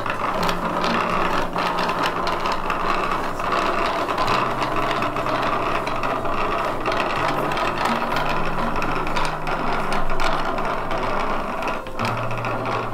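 A wooden yarn swift spins on its post while a hand-turned wooden wheel winds the yarn onto a bobbin (canilla) for the loom. The wood makes a steady run of dense small clicks and knocks.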